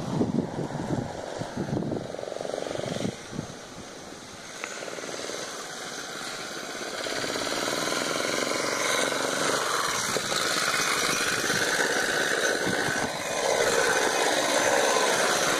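Go-kart's small petrol engine running as the kart drives up, growing steadily louder as it nears and loudest over the last couple of seconds, when it is right alongside.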